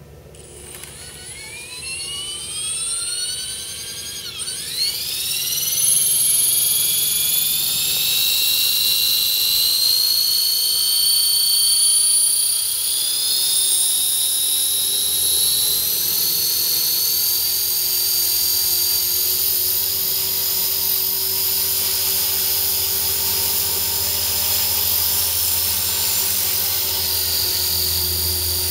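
EXI 450 Pro electric RC helicopter spooling up. The high motor whine climbs in pitch and loudness over the first several seconds, drops sharply and recovers just after four seconds in, then rises more slowly and settles into a steady high whine with the rotor at speed.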